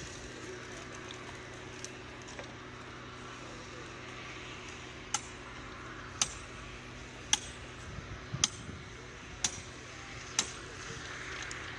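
Hammer blows ringing on steel at a thermite rail weld: sharp metallic strikes, roughly one a second, starting about five seconds in, over a steady low hum.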